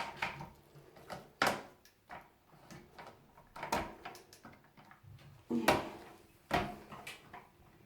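Toilet flush mechanism parts being twisted and worked loose by hand, giving about four sharp knocks and clicks spread over several seconds with faint handling noise between.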